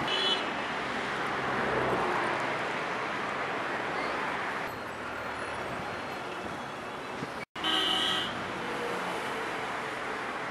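City road traffic: a steady rush of passing vehicles, with a short car-horn toot right at the start and a louder horn honk about eight seconds in, just after the sound drops out for an instant.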